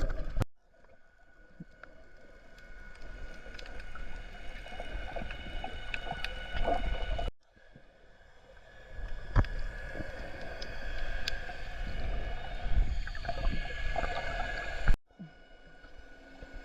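Muffled underwater sound as heard by a camera below the surface while snorkelling: crackling water noise with a steady faint whine, swelling and fading. The sound cuts off abruptly twice, at edits about 7 and 15 seconds in.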